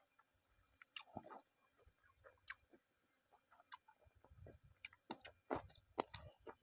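Faint chewing: scattered soft mouth clicks and smacks of a person eating, coming more often in the last two seconds.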